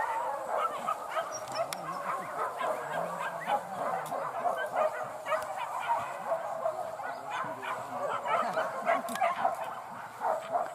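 A pack of hunting dogs barking and yelping together on the chase of a wild boar, many short overlapping yelps running together without a break.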